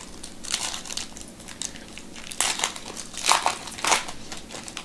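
Foil wrapper of a baseball card pack being torn open and peeled back by hand: several crinkling crackles, the loudest near the end.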